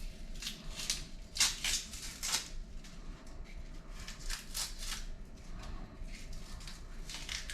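Kitchen knife cutting food: a series of short, irregular slicing strokes in clusters, with a pause in the middle.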